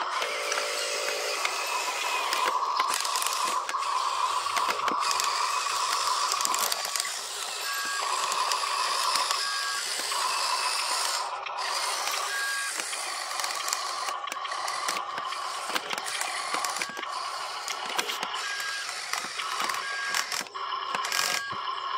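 Huina RC dump truck's small electric motors whining and gears grinding as the tipper bed works and the truck drives, with short double beeps now and then.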